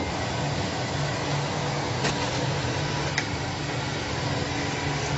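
Sawing machine for logs and lumber running, a steady motor hum and mechanical noise with two light clicks, about two and three seconds in.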